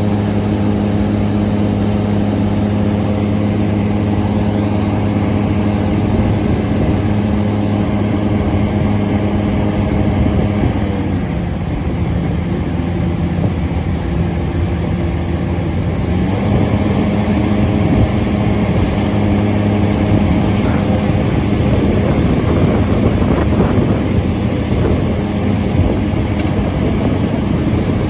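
Hitachi Zaxis 490 LCH excavator working at sheet pile driving: a loud, steady mechanical drone with a strong low hum. For about five seconds in the middle the hum turns rougher and noisier before it settles back to a steady tone.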